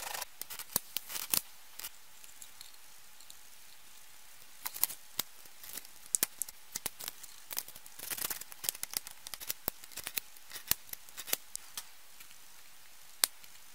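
A utility knife and cutters trimming small notches off the edges of a 3D-printed plastic box: sharp, irregular clicks and snaps in short clusters, with pauses between.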